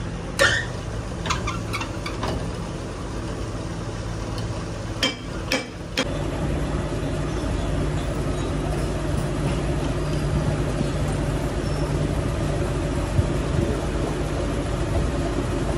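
A few sharp metallic knocks and clinks, then a machine starts up about six seconds in and runs with a steady drone.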